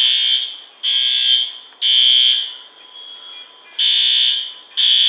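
Building fire alarm sounding the temporal-three evacuation pattern: three high-pitched half-second beeps about a second apart, a pause of about a second and a half, then the next group of beeps starting.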